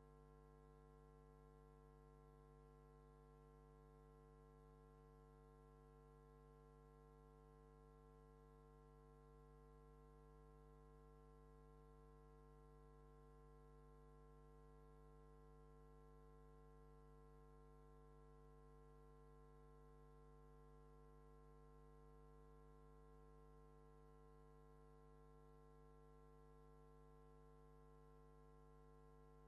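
Near silence with a faint, steady hum made of several unchanging tones.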